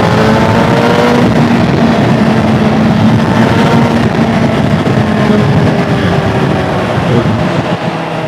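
Suzuki GSR 750's inline-four engine running through an aftermarket exhaust can while riding. The revs climb over the first second, then ease off and fall slowly.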